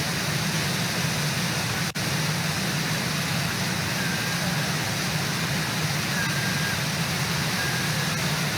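Brooks River rushing over Brooks Falls: a steady roar of falling water, with a brief dropout about two seconds in.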